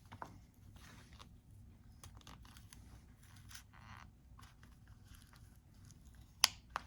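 Razor blade slicing through the screen adhesive between an iPhone 14 Pro Max's display and frame: faint scraping and crackling with scattered small clicks, and one sharp click near the end.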